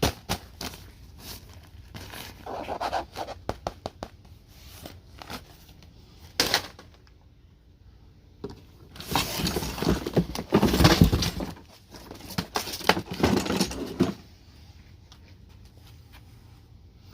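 Unpacking and handling sounds: irregular clicks, knocks and scrapes, with two stretches of rustling and scraping, the longer and louder one starting about nine seconds in and lasting some five seconds, and a sharp knock about six seconds in.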